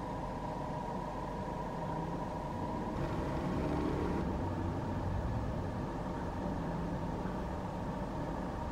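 Steady mechanical hum with a low rumble and a few steady tones, swelling slightly with some added hiss about three seconds in.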